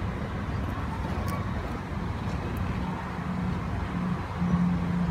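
Perodua Kancil engine idling: a steady low hum, with a steady low tone growing stronger in the last second or so.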